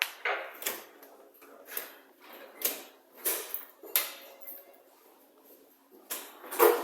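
A string of short, sharp knocks and clatters at irregular spacing, about eight in all, with a quiet gap of a second or so after the middle.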